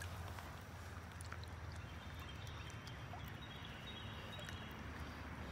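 Quiet outdoor ambience with a steady low rumble and faint splashing of shallow water around a largemouth bass held in it for release.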